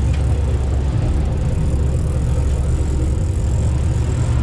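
Boat engine running with a steady low drone, an even hiss of wind and water over it.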